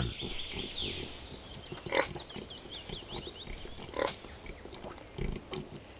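A domestic truffle pig snuffling and grunting as it roots nose-first in forest soil, with short louder grunts about two and four seconds in.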